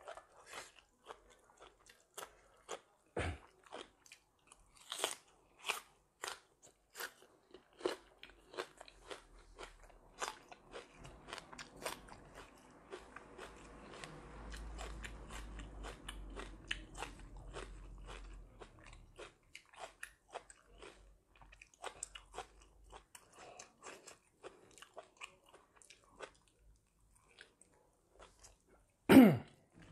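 Close-up eating sounds: crisp crunching and chewing of raw leafy vegetables and herbs, with many small wet mouth clicks. A single loud thump comes near the end.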